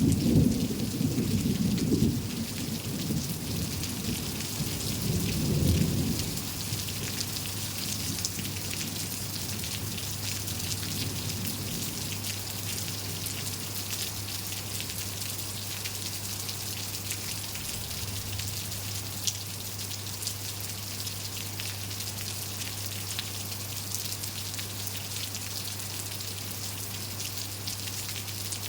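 Steady rain falling, with a low roll of thunder at the start that swells again and dies away about six seconds in.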